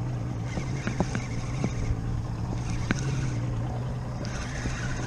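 A boat's outboard engine running steadily, with wind on the microphone and scattered light clicks from a spinning reel being cranked against a hooked fish.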